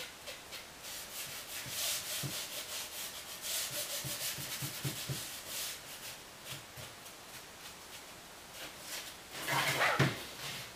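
Damp sponge rubbing acrylic paint onto a gesso-textured canvas in a run of short scrubbing strokes. A brief louder sound comes near the end.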